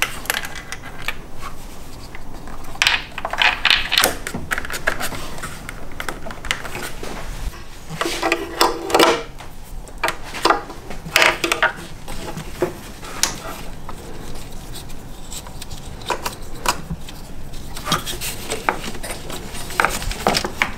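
Plastic electrical connectors on an engine's wiring loom being unplugged and plugged into different sockets by hand: irregular clicks, clatters and rustles of wiring being handled.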